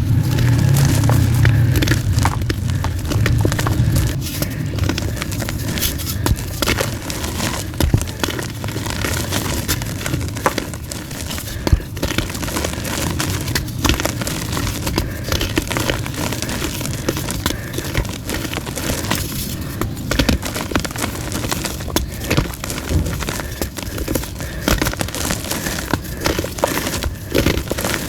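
Soft gym chalk being crushed and crumbled close to the microphone: a continuous dense crackle of many small crunches and snaps, heavier and fuller in the first few seconds.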